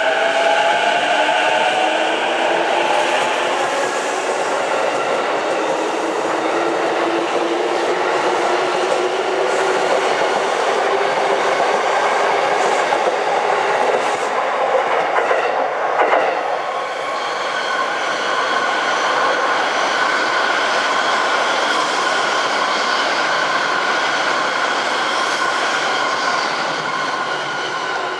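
Saikyo Line E233 series electric train pulling away and accelerating, its traction motors whining upward in pitch over the first few seconds, followed by the steady running rumble and wheel clatter on the rails. About halfway through, a Shinkansen running on the parallel tracks takes over, with a steadier, higher-pitched running sound.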